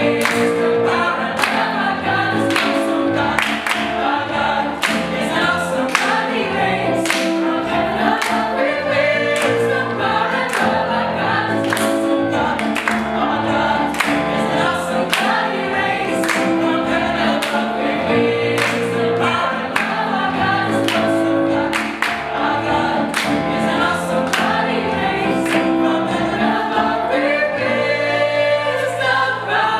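Mixed-voice gospel choir singing in full harmony over keyboard accompaniment, the singers clapping on the beat. The clapping stops near the end while the singing carries on.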